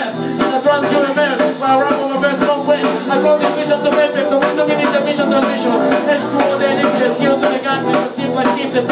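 Band music with a singer: instruments and a voice over a full, continuous song.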